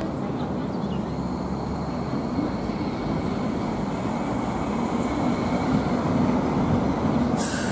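MTR Light Rail car pulling away from the stop and passing close by: a steady rumble of wheels and running gear that grows louder as it goes past, with a faint steady high whine. A brief hiss near the end.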